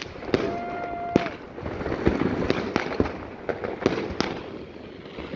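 Firecrackers and fireworks going off one after another, with sharp bangs at irregular intervals, at times several in a second. About half a second in there is a brief steady tone.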